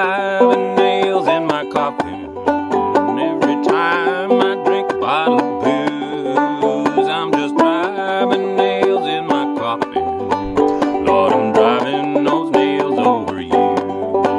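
Clawhammer banjo in open G tuning playing an instrumental break of a country song: a steady rhythm of plucked notes and brushed strums over a bass line of low notes that step up and down.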